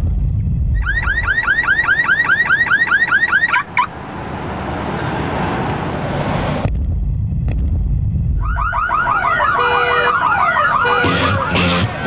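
Car-alarm siren sound in two runs: first a fast series of rising chirps, about eight a second, that cuts off suddenly, then after a low rumble a second pattern of chirps and falling sweeps with steady beeps.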